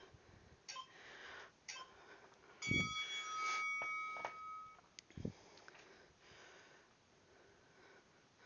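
Kettlebell set down on the floor at the end of a set: a heavy thud about a third of the way in with a metallic ringing that fades over about two seconds, then a second softer thud and a few light knocks, with faint breathing.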